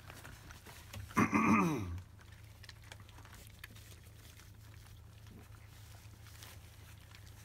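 A Labrador retriever puppy gives one loud whine, falling in pitch, about a second in. Then comes faint smacking and lapping as the litter eats weaning food from a dish.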